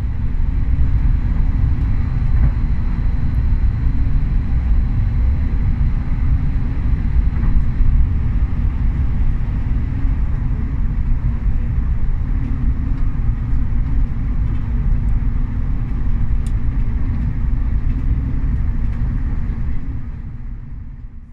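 Train running at speed: a steady low rumble, with a faint high whine over the first several seconds. The sound fades out at the very end.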